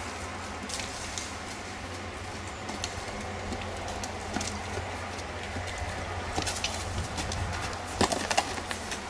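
A horse's hooves on a gravel arena: scattered crunching steps and knocks, the loudest few close together about eight seconds in, with birds calling.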